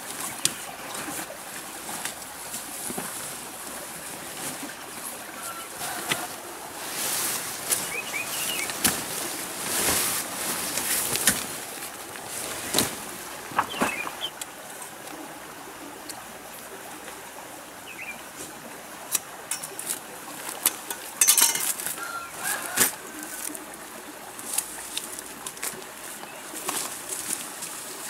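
Nylon tent fabric rustling and the frame clicking and snapping as a pop-up dome tent is unfolded and raised, in repeated bursts. A few short bird chirps sound over it.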